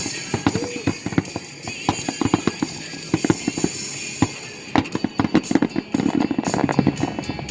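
Fireworks going off in quick, irregular pops and bangs, several a second, with a dense burst of crackling about five seconds in, over music playing.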